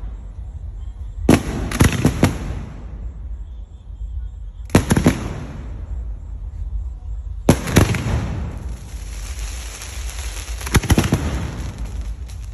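Fireworks bursting overhead: four clusters of sharp bangs and crackles a few seconds apart, each fading off in a short echo, over a steady low rumble.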